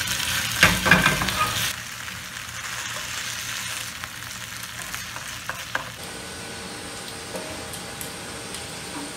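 Thin potato slices sizzling in oil in a non-stick frying pan. About a second in there are a few sharp clicks and scrapes as a plastic spatula presses the potato pancake against the pan. After about two seconds the sizzle carries on more quietly.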